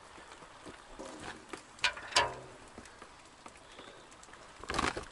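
Galvanized steel bucket being handled: two sharp metal clanks about two seconds in, the second ringing briefly, then a short clatter near the end.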